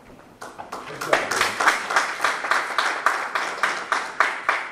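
Audience applauding, the claps coming about four a second; it starts about half a second in, swells within the first second and dies away at the end.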